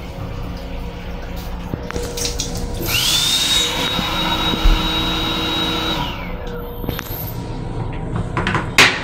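Electric motor in a railcar restroom's combined dryer-faucet-soap sink unit, whining quickly up to speed, running steadily for about three seconds, then winding down, over running water and a low steady hum. A sharp knock comes near the end.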